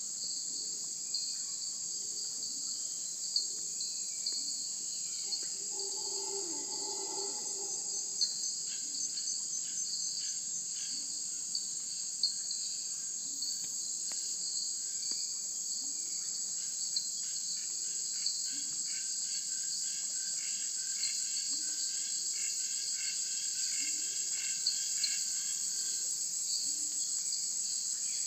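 Steady, high-pitched chorus of insects shrilling without pause. Softer repeated calls trill beneath it, mostly in the second half, and a brief lower call comes about seven seconds in.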